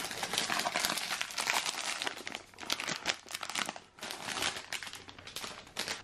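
Clear plastic wrapping crinkling and rustling continuously as a rolled neoprene playmat is unwrapped from it.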